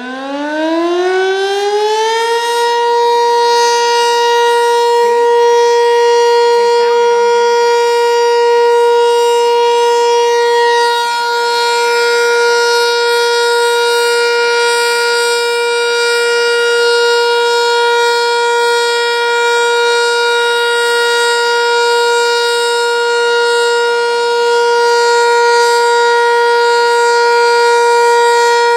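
Sentry 3V8-H tornado siren sounding a test. It winds up, its pitch rising over the first two seconds or so, then holds one loud, steady wail.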